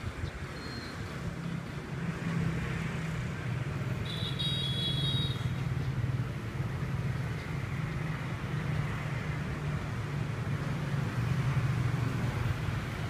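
Steady low rumble of road traffic, with a brief high-pitched tone about four seconds in.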